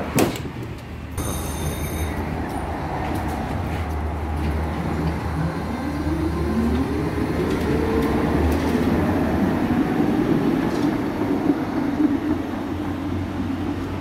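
ČKD Tatra T6A5 tram pulling away from the stop: its traction equipment whine rises in pitch over a couple of seconds, then holds steady over a low hum. A knock right at the start and a short high beep about a second in.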